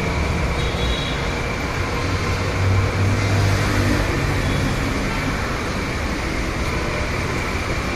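Steady roadside background noise: a continuous traffic din with a low hum underneath and a faint high steady tone.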